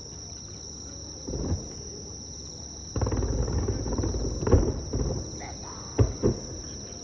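Fireworks going off: a dull boom, a longer rumbling stretch of bursts, then sharp bangs near the end. Insects, crickets among them, chirp steadily throughout in a high, even trill.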